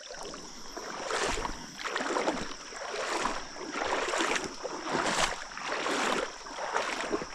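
Footsteps wading through shallow river water, a splashing stride about once a second, over a steady drone of crickets.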